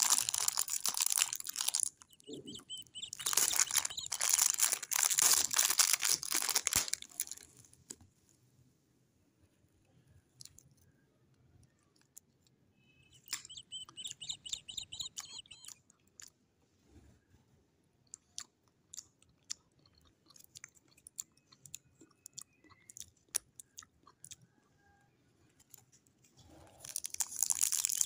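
Clear cellophane lollipop wrapper crinkling as it is handled and pulled open, loud for most of the first eight seconds and again near the end. Between these is a long quiet stretch of scattered small clicks and rustles.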